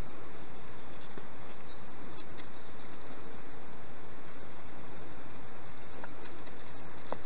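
Steady outdoor background noise on a woodland path, an even hiss with a few faint clicks and ticks and one sharper click near the end.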